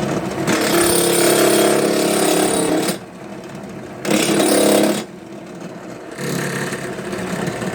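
Drill press driving a step bit through a flattened dome strut, the bit biting in loudly in three spells with the quieter running of the press between them.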